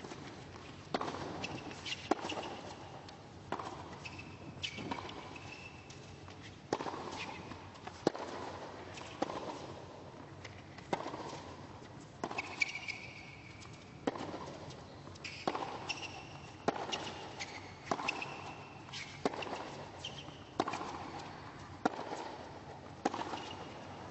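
Tennis rally: the ball is struck back and forth with rackets, a sharp hit about once a second, in a long exchange.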